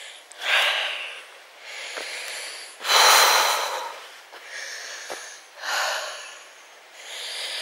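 A person breathing hard from the effort of climbing a steep path: about five heavy breaths roughly a second and a half apart, the loudest about three seconds in.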